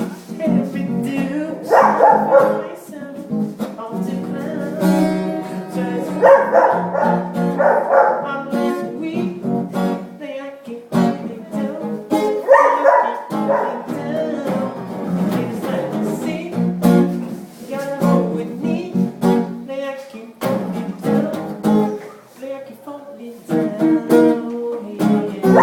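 Strummed guitar music with a dog barking along.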